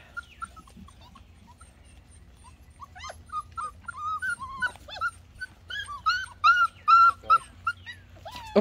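Goldendoodle puppies whimpering and yipping in short, high calls. The calls are sparse and faint at first, then come thick and fast from about three seconds in.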